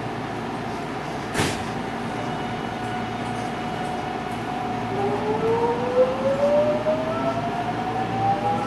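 JR West 207 series electric train heard from inside the car: a steady cabin hum with a single clunk about a second and a half in. About five seconds in, the traction inverter and motors start a whine of several parallel tones rising in pitch as the train pulls away and accelerates.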